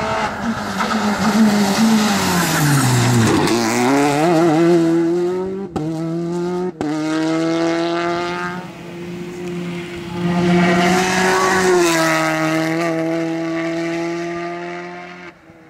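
Peugeot 208 R5 rally car's turbocharged four-cylinder engine at high revs as the car passes at speed. The note falls steeply as it goes by, then holds a fairly steady high pitch with two short breaks around six and seven seconds in, and fades near the end.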